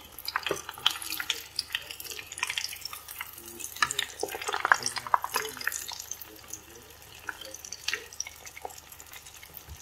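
Chicharon-crumbed eggplant and chicken balls deep-frying in hot oil, a steady bubbling sizzle dense with small crackling pops, as a metal spoon stirs them in the pot.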